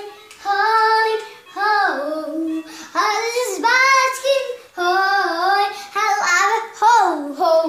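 A young girl singing unaccompanied, in short phrases of about a second with brief pauses between them.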